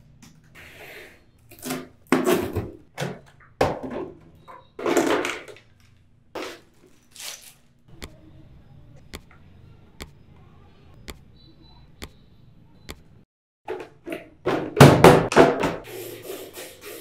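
Plastic cabinet of a water purifier being handled and opened: a string of knocks, clicks and thuds from the casing and panels. There is a run of light, evenly spaced clicks in the middle, and the loudest cluster of knocks comes near the end.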